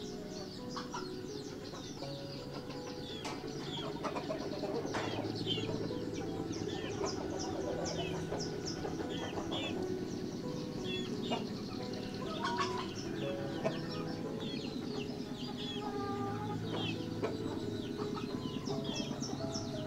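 Chickens clucking and peeping: a steady chorus of many short, high chirps over lower clucks.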